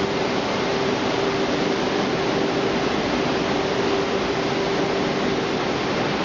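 Automatic French fries production line running: a steady rushing noise of machinery and air with a constant hum, no change throughout.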